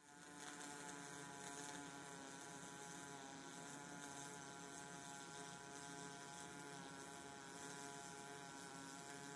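MIG/MAG welding arc burning steadily: an even buzz over a hiss.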